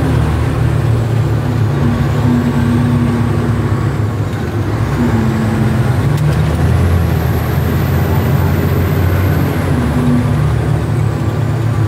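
Heavy vehicle driving, its engine making a loud, steady low rumble heard from inside the cab, with a faint high whine that rises and falls in pitch.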